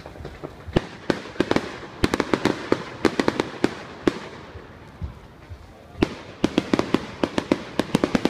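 Fireworks display: rapid strings of sharp bangs and crackles from bursting aerial shells. They come in two bouts, the first starting about a second in and the second about six seconds in, with a short lull between.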